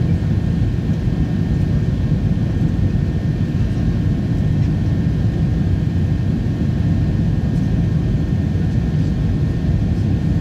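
Steady cabin noise inside a jet airliner: a low, even rumble of engines and airflow with a faint thin high whine running through it.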